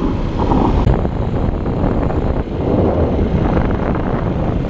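Wind rushing and buffeting over the microphone of a camera on a moving motorbike, with the bike's engine running underneath.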